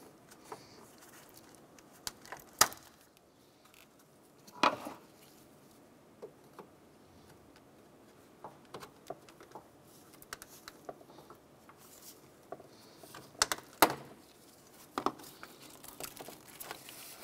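Scattered sharp clicks and light plastic rattles as wiring harness clips and corrugated loom are pulled free from the electric cooling fan assembly. The loudest clicks come about two and a half seconds in, near five seconds, and twice close together near the end.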